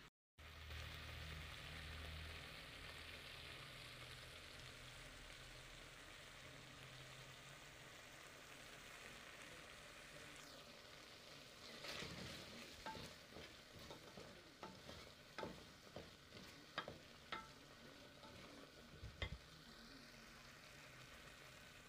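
Food cooking in a pot with a faint, steady sizzle; from about halfway a spoon stirs a thick stew of mrenda greens and meat, knocking about ten times against the metal pot.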